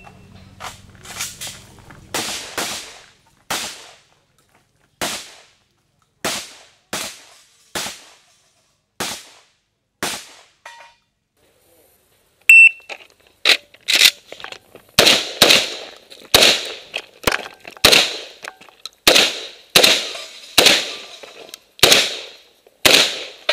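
Semi-automatic 12-gauge shotgun firing a long string of shots, roughly one a second. A short high electronic beep sounds about halfway, after which the shots are louder and come a little faster.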